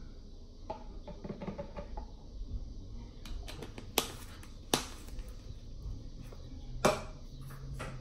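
Small plastic hair-dye bottles being handled: soft rustling with a few sharp clicks and knocks, the three loudest about four, five and seven seconds in.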